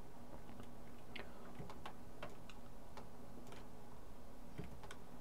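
Faint, irregular clicks of a computer mouse, a dozen or so over a few seconds, over a low steady hum.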